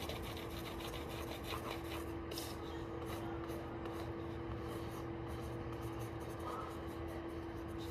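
Mechanical pencil scratching on paper in quick, repeated strokes while a house is drawn, over a steady low hum.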